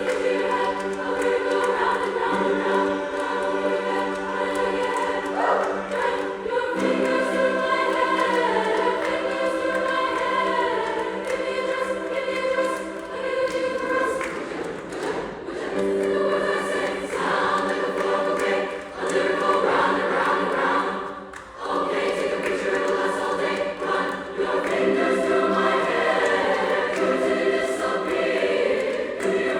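Mixed SATB choir singing in several parts, with sustained chords and moving lines. The sound dips briefly about three-quarters of the way through.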